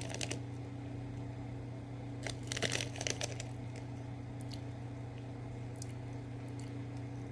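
Short bursts of crinkling and crunching as the butterbeer fizzing candies are handled and eaten, loudest around two to three seconds in, over a steady low electrical hum.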